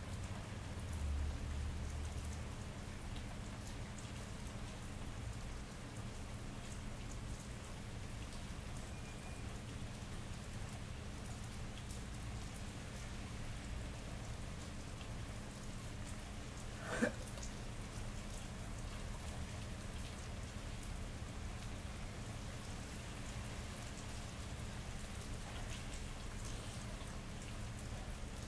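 Steady summer rain falling on wet city pavement, with a steady low hum underneath. A low rumble fades out in the first two seconds, and a single sharp tap rings out about seventeen seconds in.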